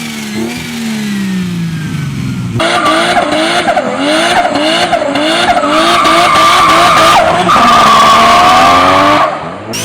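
Modified car engine revving down. Then a car engine repeatedly revs up and drops back about twice a second while the tyres squeal with a steady high tone.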